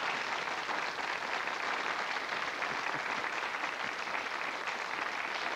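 Studio audience applauding, many hands clapping steadily, easing off slightly near the end.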